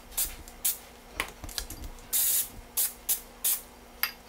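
Aerosol can of Pam cooking spray hissing in a series of short sprays, one longer about two seconds in, as it greases the inside of ceramic ramekins.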